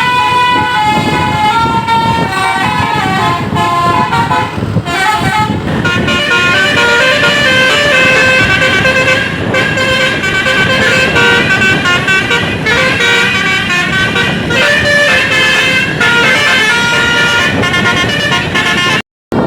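Indonesian bus 'telolet basuri' musical horn playing a tune of clear, stepping notes, loud and continuous, over a low rumble. The sound cuts out for a moment just before the end.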